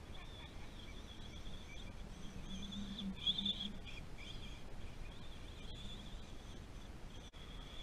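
High whine of an RC truck's Castle 5700kv brushless motor, heard from a distance, its pitch wavering with the throttle and loudest about three seconds in, over a low wind rumble.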